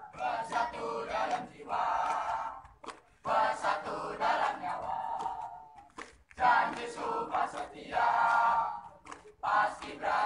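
A group of young voices chanting and singing together in unison, in short phrases with brief breaks between them, as a troop's cheer routine.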